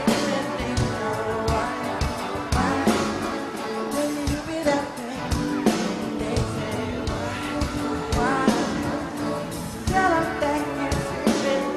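Live pop music: a lead singer's voice over a band with a steady drum beat.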